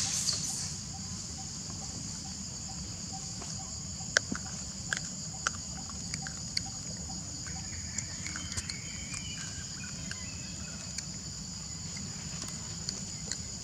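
Steady high-pitched drone of insects over outdoor ambience, with a few bird chirps dying away in the first half second. A handful of sharp clicks come about four to six seconds in.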